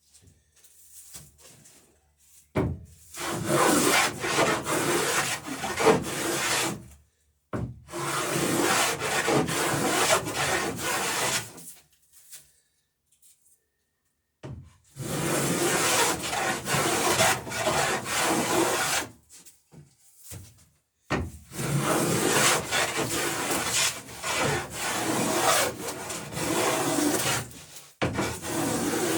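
Hand plane shaving wood along a plank edge, beveling a dory's strake to take the next plank. It comes in four runs of steady strokes, each lasting about four to eight seconds, with short pauses between them.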